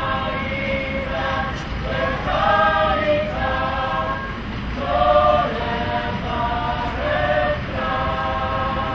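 A choir singing slow, held notes in several voices, in phrases with short breaks between them, over a low steady rumble.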